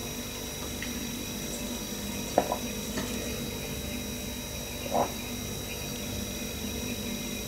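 Two short gulps of tea being sipped and swallowed from a mug, about two and a half seconds apart, over a steady low room hum.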